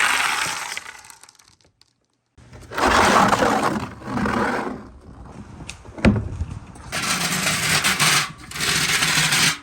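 Many marbles rolling and clattering down a marble run track in three long stretches, with a single sharp click about six seconds in.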